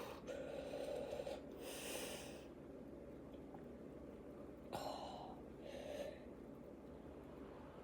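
A person breathing hard in a few short, noisy breaths through the nose and mouth, one with a slight hum, while holding back a burp after chugging soda.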